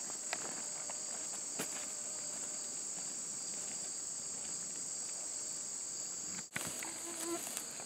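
Steady, high-pitched chorus of insects such as crickets, with a few faint crunching footsteps on gravel.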